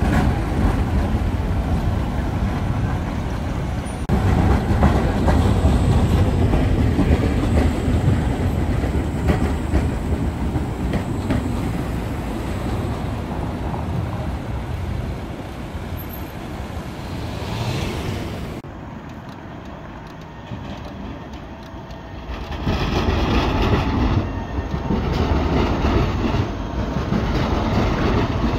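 Modern Škoda low-floor city trams passing on street track in turn, their steel wheels rumbling along the rails with street traffic around. Quieter for a few seconds about two-thirds through, then loud again as a tram passes close by.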